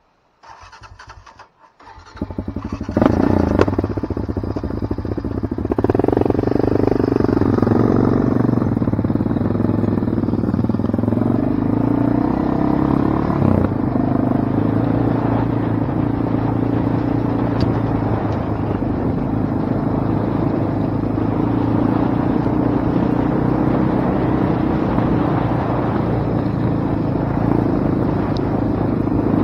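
Off-road vehicle engine coming in about two seconds in, swelling twice early on, then running steadily.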